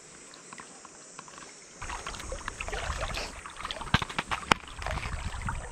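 River water splashing and sloshing, starting suddenly about two seconds in, with a low rumble and a few sharp clicks.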